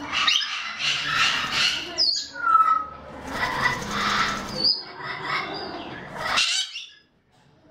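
Sulphur-crested cockatoo flapping its wings and scrambling on the wire mesh of an aviary, in uneven noisy bursts, with a few short whistled parrot calls among them. The sound cuts off suddenly shortly before the end.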